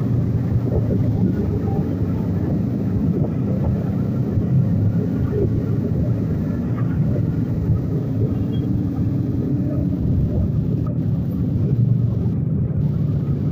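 Motorcycle engines running under way: the riding Bajaj bike and the group of motorcycles around it, heard as a steady low rumble.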